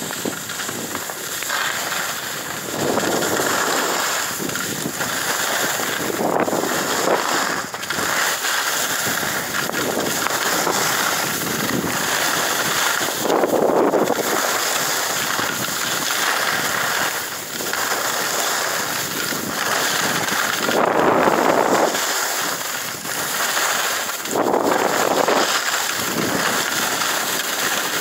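Wind buffeting a handheld cell phone's microphone while skiing downhill, with skis scraping over packed snow. The noise swells and eases every one to three seconds, as with each turn.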